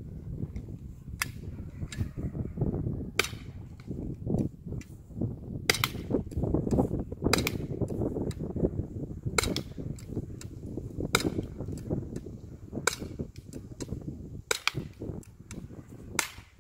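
Umarex Walther PPQ M2 .43 cal paintball pistol firing marking balls, about a dozen sharp gas-powered shots at uneven intervals, some in quick pairs, over a steady low rumble.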